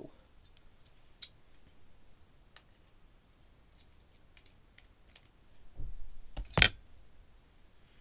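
Small clicks and light knocks of a Dyson DC03 vacuum cleaner's parts being handled, with a low bump and then one sharp, loud click about six and a half seconds in.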